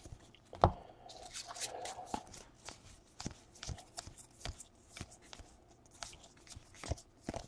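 Trading cards flicked one after another off a stack by hand: a quiet, irregular run of short card-on-card flicks and slides, a few each second.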